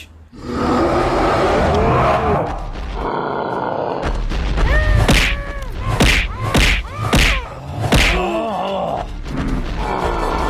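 Cartoon fight sound effects: a rushing whoosh for about the first four seconds, then a quick run of hits and thuds with short grunting and crying cartoon voices between them, over music.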